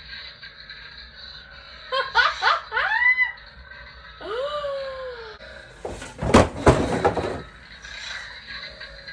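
A person's high-pitched laughing and squealing: quick sweeping cries about two seconds in, a falling cry about four seconds in, then a loud noisy burst about six seconds in.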